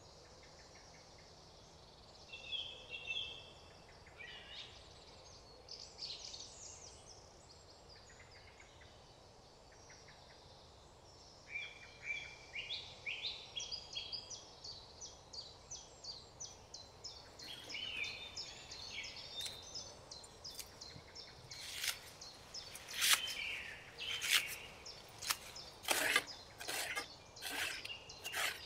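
Woodland birds singing, with chirps and rapid trills. From about two-thirds of the way in, a run of sharp, uneven cutting clicks: a knife slicing through wild garlic leaves in a small metal pan.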